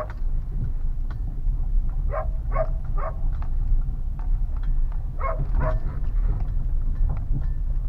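Citroën C4 driven slowly over rough ground, heard from inside the cabin: a steady low road rumble with faint intermittent knocks from the front suspension, the knock of a worn ball joint. Five short high-pitched calls cut through it in two groups, three about two seconds in and two about five seconds in.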